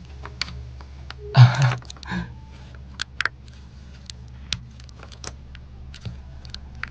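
A short breathy laugh about a second and a half in, then light, irregular clicks and taps scattered through the rest.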